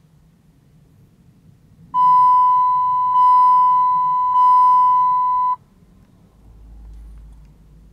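The 2001 Chrysler PT Cruiser's instrument-cluster warning chime sounds three times back to back: a steady high beep lasting about three and a half seconds in all. It goes with the odometer's "no bus" message, the sign that the cluster has lost communication with the other modules on the data bus; the cause was a shorted cable from the transmission control module.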